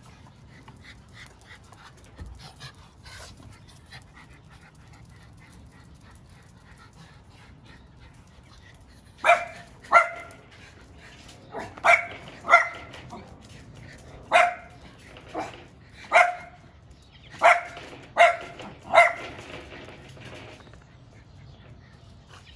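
Miniature schnauzer barking: about a dozen short, sharp barks in quick succession, starting about nine seconds in and stopping about twenty seconds in, with only faint background before.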